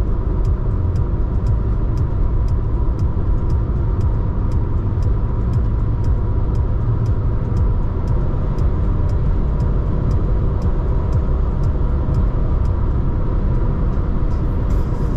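Car driving at steady highway speed: an even low rumble of tyre and engine noise, with faint regular ticking about twice a second.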